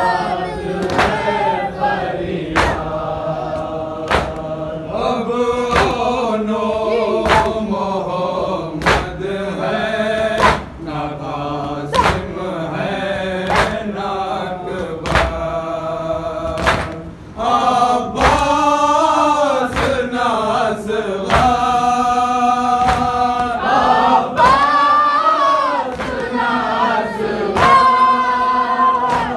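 A group of men chanting a noha, a Shia lament, in unison. A steady thump about once a second beats time, the sound of matam, palms striking chests.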